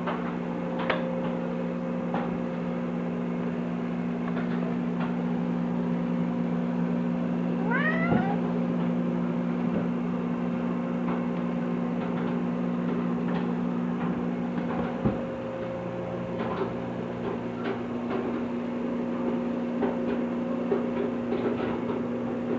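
A cat meows once, a short rising call about eight seconds in, over a steady electrical hum with a few scattered light knocks.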